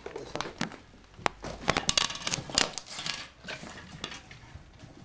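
Footsteps crunching over fallen ceiling plaster and broken tile fragments, with irregular clicks and clatters of debris shifting underfoot, busiest in the middle of the stretch.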